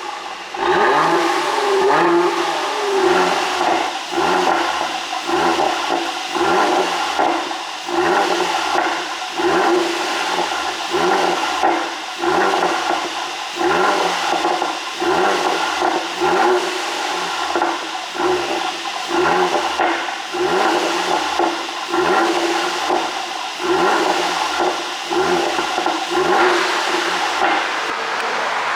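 Mercedes-AMG GLC 43's twin-turbo 3.0-litre V6 blipped repeatedly, revving up and falling back about once a second, with the exhaust popping and crackling on each fall: the sound of a pops-and-bangs exhaust tune.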